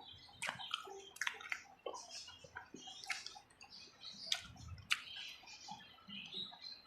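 Close-miked eating sounds: wet chewing and lip smacking, with irregular small clicks throughout.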